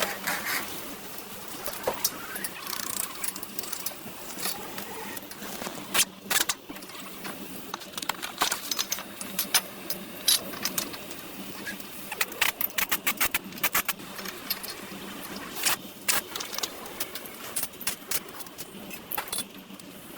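Irregular sharp metallic clinks and clicks of hand tools and metal parts being handled, over a steady low hum.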